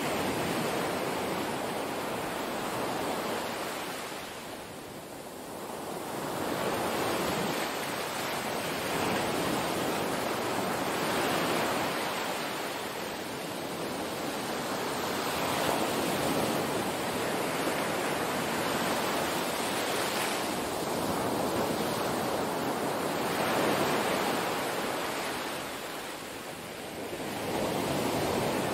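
Small waves washing onto a sandy beach: a steady surf hiss that swells and eases every few seconds.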